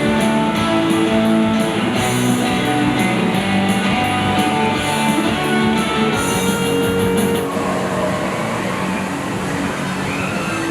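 Music with guitar and a steady beat; the beat drops out about seven and a half seconds in while the notes carry on.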